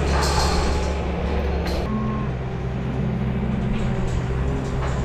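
A vehicle engine running steadily, its note shifting slightly about two seconds in, with a few sharp knocks near the start.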